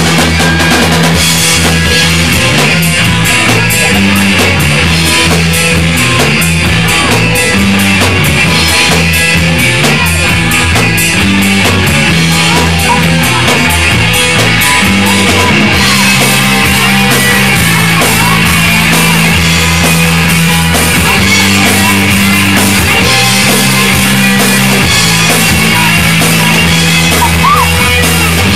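Live rock band playing loudly: electric guitars, electric bass and drum kit, the bass line stepping between a few notes under steady cymbal hits.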